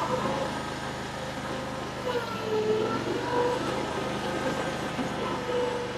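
Mini skid steer's engine running steadily while grading dirt, with a higher tone above it that wavers in pitch.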